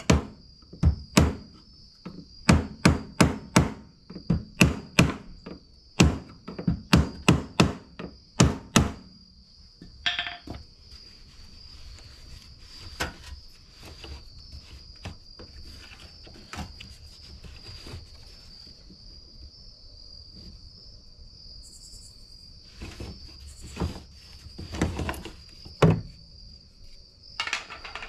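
Rapid runs of sharp knocks, as the fuel pump assembly is tapped apart, for about the first nine seconds. Lighter clicks and handling noises follow, with a brief squeak and a few more knocks near the end. Crickets chirp steadily in the background.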